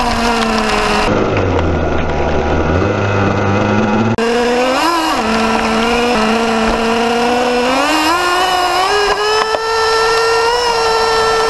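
Radio-controlled car's motor running at high revs, heard from a camera riding on the car. Its buzzing pitch drops, rises and falls again as the throttle is eased and opened, and climbs back up about eight seconds in as the car speeds up.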